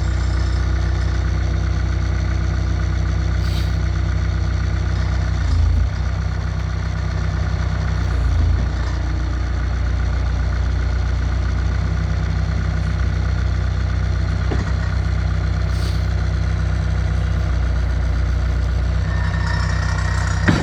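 Bobcat T140 skid steer's diesel engine running steadily, with two brief swells in level about six and eight and a half seconds in.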